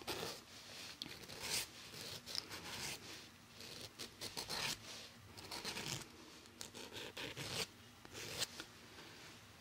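A nail file scraping across the edge of a fingernail in quiet, short, irregular strokes, rounding the nail into a point.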